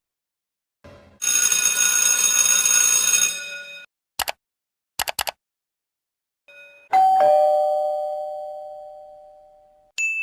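A string of short sound effects: a steady bright ringing for about two and a half seconds, a few sharp clicks, then a two-note "ding-dong" doorbell chime, high note then low, that fades away slowly. A short high ding follows near the end.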